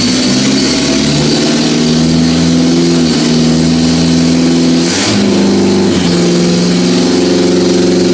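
1990 Geo Tracker's 1.6-litre four-cylinder engine running loud with no exhaust system fitted, driving the raised wheels through a newly replaced clutch. Engine speed dips briefly about three seconds in and again about five seconds in, where there is a clunk, then picks up and holds steady.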